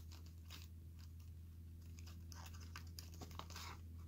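Faint, irregular clicks and scrapes of small metal lock-picking tools, tension wrenches, being picked up and sorted, over a steady low hum.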